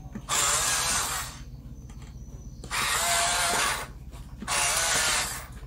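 Huina 1753 RC dump truck's electric motor and plastic gearbox whirring in three short runs of about a second each, each spinning up with a slight rising whine.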